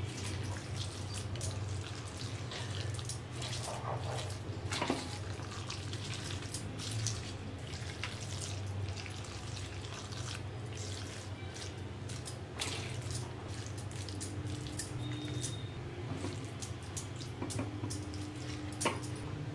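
Wooden spatula stirring and pressing curd rice in a steel bowl: soft wet squishing with irregular clicks and knocks of the spatula against the bowl. A steady low hum runs underneath.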